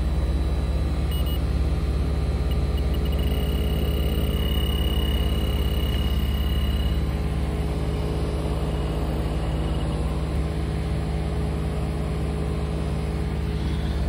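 Bosch heat pump outdoor unit running with a steady low hum from its compressor and fan, the system low on refrigerant from a leak. An electronic refrigerant leak detector gives a high tone, short beeps at first and then a steady tone from about four to seven seconds in, as it picks up refrigerant leaking at a flare nut.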